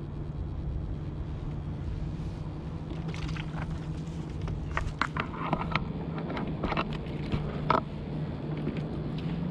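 A steady low motor hum, with a run of short clicks and knocks in the middle as fishing gear and a landing net are handled on a kayak. The sharpest knock comes near the end.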